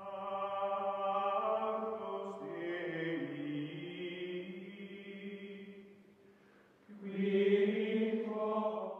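Chant-like choral music: voices holding long, sustained chords that shift about two and a half seconds in, fade away around six seconds, return a second later and stop abruptly near the end.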